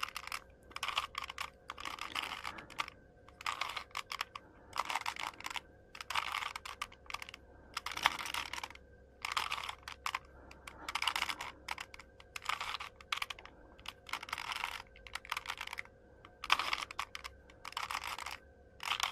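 Rubik's Cube layers being turned by hand: repeated bursts of plastic clicking and clacking as the faces are twisted, with short pauses between turns.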